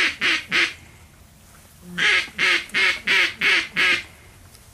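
Mallard duck call blown in quacking runs: the last two or three quacks of one series, a short pause, then a steady string of six evenly spaced quacks, about three a second.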